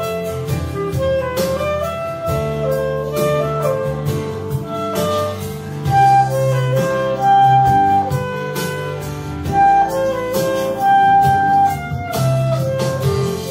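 Clarinet playing a melody in the key of D, with held and moving notes, over a backing track with a steady low accompaniment and light percussion.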